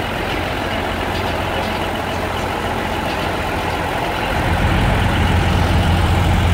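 Diesel engine of a large Knudson four-wheel-drive tractor running as the tractor moves slowly along, growing louder about four seconds in.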